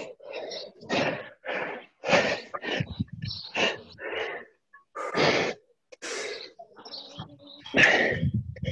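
A person breathing hard while exercising: a quick run of loud, rasping breaths, about one to two a second.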